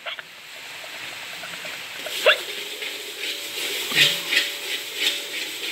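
Oil sizzling in a hot wok over a gas burner, a steady hiss that grows louder. A short rising squeal comes about two seconds in, and a few clicks about four seconds in.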